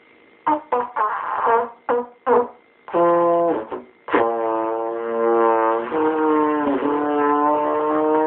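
Trombone played by a beginner: a string of short blasts, then a long held note whose pitch sags and slides down twice on the slide before settling.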